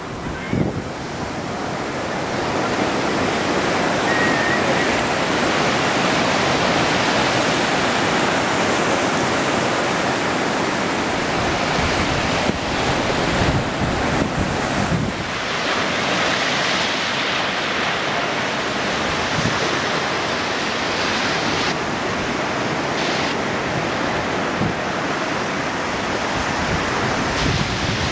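Small breakers and foaming surf washing up a sandy beach: a steady, loud rush of sea that builds over the first couple of seconds and then holds. Wind buffets the microphone a few times around the middle.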